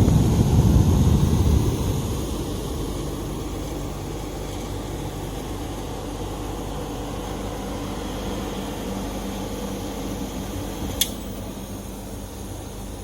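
1975 White Westinghouse air conditioner with a reciprocating compressor, running with a steady hum and airflow noise that is louder for the first two seconds or so. A single sharp click comes about eleven seconds in.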